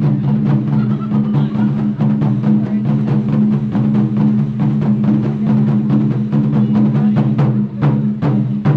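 Japanese taiko drums played in quick, steady strokes over a sustained low boom; the strokes grow louder and sharper near the end.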